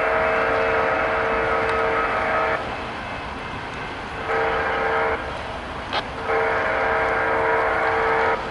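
Locomotive air horn sounding a chord in blasts: the end of a long blast, a short blast about four seconds in, then another long blast, the crossing-signal pattern blown as a train approaches a grade crossing. A sharp click sounds just before the last blast.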